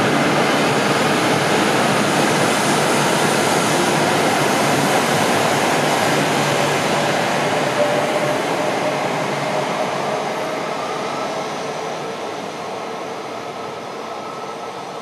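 An E6 series Shinkansen running through the station at speed: a loud, steady rush of wheels and air with a faint hum, fading after the tail end passes about two-thirds of the way in.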